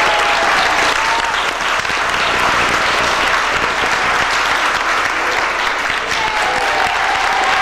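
Audience applauding steadily, with a few voices calling out near the start and again near the end.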